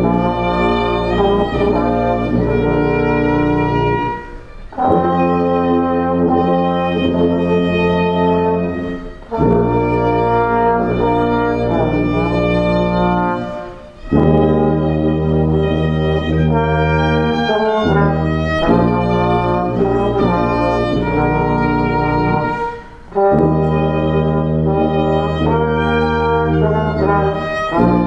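Small ensemble of violin, sousaphone and trombone playing a tune, the sousaphone holding long low notes under the melody. The music comes in phrases with brief breaks between them.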